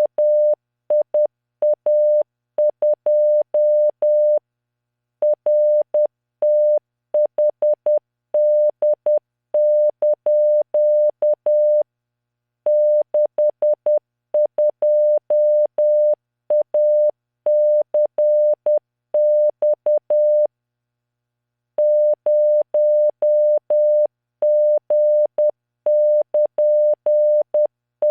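Computer-generated Morse code (CW) practice tone at 600 Hz keyed at 10 words per minute, sending random five-character groups as dots and dashes with pauses of about a second between groups. Each element starts and stops with a faint click.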